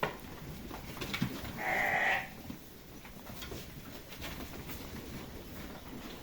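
A lamb bleats once, a short call of about half a second, a little over a second and a half in.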